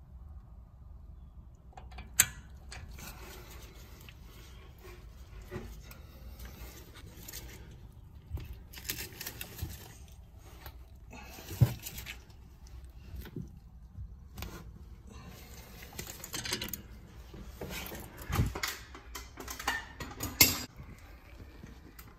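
Metal hand-tool clatter: a socket and long-handled wrench working on the brake caliper mounting bolts, with intermittent rasping and clinking and a few sharp metallic knocks.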